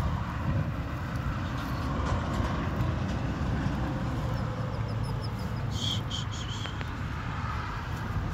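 Steady, uneven low rumble of wind on the microphone in an open pasture, with a short run of high bird chirps about six seconds in.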